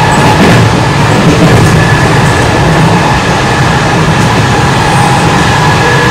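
JR West 207 series electric commuter train running at speed, heard inside the passenger car: a loud, steady rumble of wheels on rail with a steady high whine from the running gear over it.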